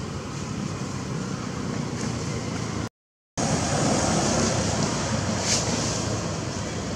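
Steady outdoor background rush with no distinct animal calls, cut by a brief dead gap of silence about three seconds in, and a little louder after it.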